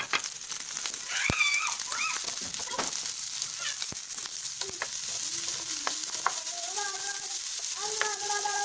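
Fried rice with diced carrot sizzling in a nonstick frying pan while a spatula stirs and taps against the pan. Faint pitched calls sound in the background now and then.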